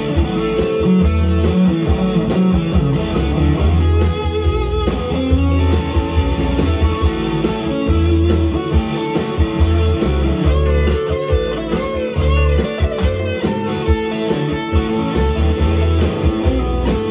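Harley Benton HB TE-30 Telecaster-style electric guitar played through an amp, picked with single-note country-style licks over a steady, repeating low bass pattern.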